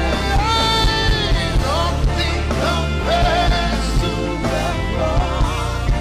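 Live worship music: a singer's melody with long, wavering held notes over a band, with a steady bass and regular drum hits.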